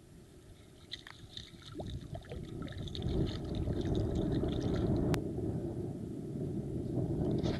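Shallow seawater sloshing and splashing close by, with fish thrashing at the surface on a rope stringer, over a low wind rumble on the microphone that swells midway. A single sharp click about five seconds in.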